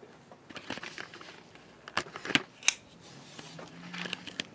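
Blue painter's tape being pulled from the roll and torn off, a few short sharp rips around the middle, with lighter rustling and clicks near the end.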